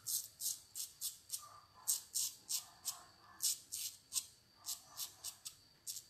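Razorine safety razor blade scraping through lathered stubble on the upper lip in short, quick strokes, about three a second; a blade the shaver finds very sharp.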